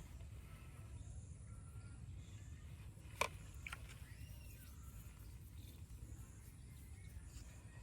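Outdoor ambience with a steady low rumble and faint chirps, broken by one sharp click about three seconds in.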